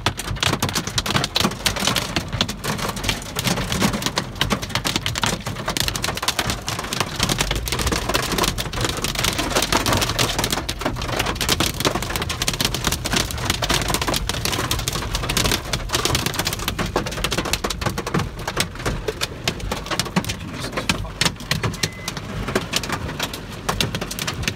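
Pea-sized hail and rain pelting a car's roof and windshield, heard from inside the cabin: a dense, steady clatter of countless small impacts.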